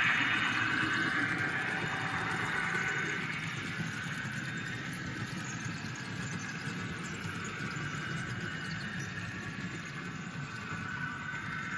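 N gauge model diesel locomotive hauling a container train past, giving a steady running noise. It is loudest at the start, then eases and holds steady.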